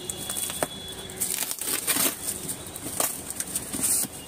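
Packing tape being ripped off a cardboard carton and the cardboard flaps pulled open, with plastic packaging rustling inside: a handful of short, scratchy rips and rustles.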